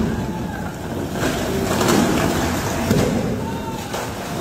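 Tunnel boring machine cutterhead grinding out through the rock face, a loud rough rumbling noise with a few knocks of breaking rock, mixed with the hiss of water hoses spraying the face. Short calls of people's voices come through now and then.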